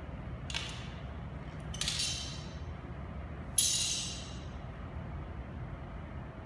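Three sharp clinks, the second and third ringing and fading over about half a second, with the last one the loudest, over a steady low hum.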